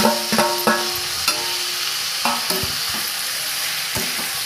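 Chopped tomatoes and onions sizzling in hot oil in a stainless steel pan while a spatula stirs them. The spatula knocks against the pan, which rings several times in the first second and a few times after.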